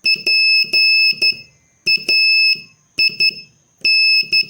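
Morse code practice tone sending the word "PAID": high-pitched beeps keyed as dit-dah-dah-dit, dit-dah, dit-dit, dah-dit-dit, with short gaps between the letters.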